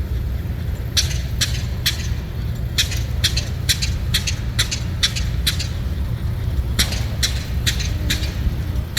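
A vehicle engine running with a steady low rumble, with a string of sharp ticks at uneven spacing, roughly two a second.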